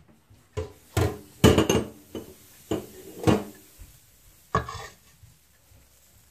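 Batter bowl and utensil clinking and knocking as waffle batter is poured onto a waffle iron: five or so separate knocks over about four seconds, the loudest about a second and a half in.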